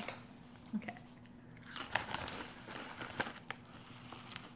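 Faint, scattered crunching of a crispy popped-corn chip (PopCorners white cheddar) being bitten and chewed, mixed with crinkling of the foil snack bag.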